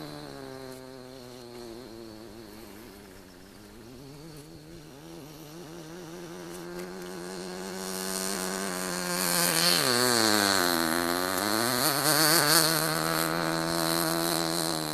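Enya 19V glow two-stroke engine of a 1/8-scale RC buggy running with a steady high buzz. It gets louder in the second half, and about ten seconds in its pitch drops and climbs back as the throttle eases off and opens again.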